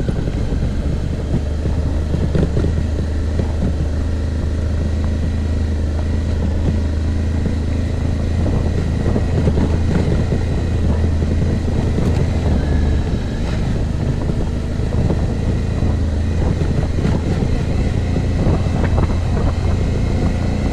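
Suzuki V-Strom's V-twin motorcycle engine running at a steady pace while riding off road.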